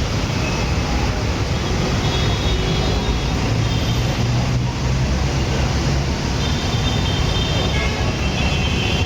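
Steady rumble of road traffic with high, thin bird calls coming through now and then.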